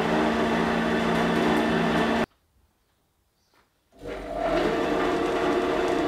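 Tanner planer's new 1 hp electric motor and belt-driven cutterhead running with a steady hum and whine; the machine was freshly unseized and greased and runs smoothly. It cuts off abruptly about two seconds in, and after a short silence spins up again and runs on.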